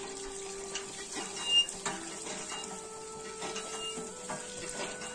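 Water from a hand pump gushing into a steel bowl as meat is washed by hand, with scattered clicks and clatter of metal and one sharp clank about one and a half seconds in.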